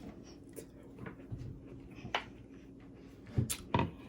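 Close-miked eating sounds: faint chewing of vegetables with a few short, sharp mouth and utensil clicks, the two loudest near the end.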